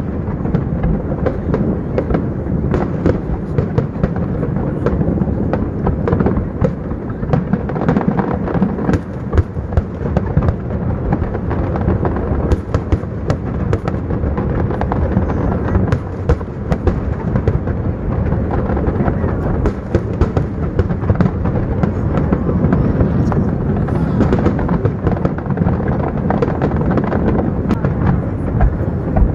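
Aerial fireworks display going off in a dense, near-continuous barrage of overlapping bangs.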